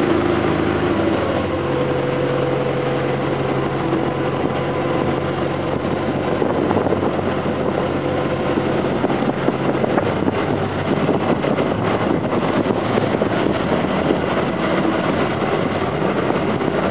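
A suction boat's engine and pump running steadily, a loud dense noise with a low hum underneath.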